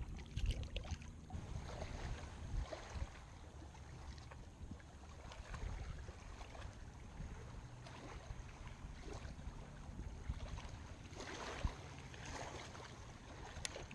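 Wind rumbling on the microphone over small waves lapping against a rocky shore, with a sharp click near the end.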